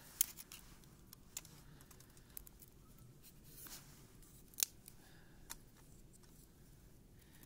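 Scattered sharp clicks and small snaps, about half a dozen spread irregularly, the loudest just after the start and again past the middle, over a low steady background.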